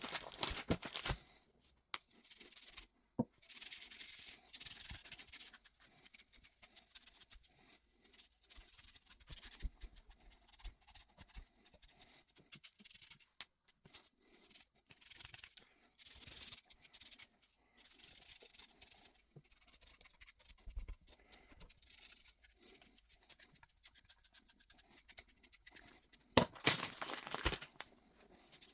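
Intermittent scrubbing and rubbing on a dirty winch remote as it is cleaned, with a louder stretch of scrubbing near the end.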